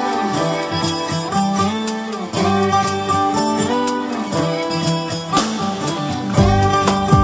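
Instrumental interlude of a Hindi song: plucked string notes over held melody notes, with low drums coming in near the end.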